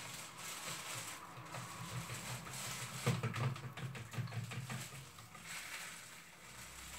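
Metal spoon stirring yeast and milk in a plastic bowl: faint scraping and light taps against the bowl, over a steady background hiss and a low hum.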